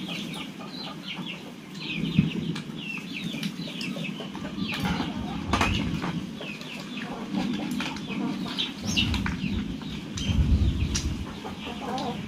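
Chickens clucking and chirping, with many short high chirps throughout. Close by there are a few knocks and rustles of handling at the table.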